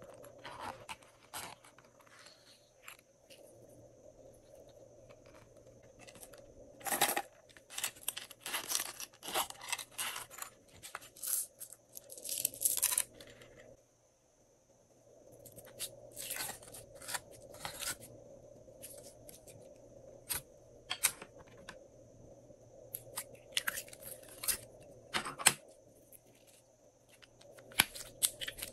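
Glossy slime squeezed and kneaded by hand, giving off irregular sticky clicks and pops, with a short quiet break about halfway through.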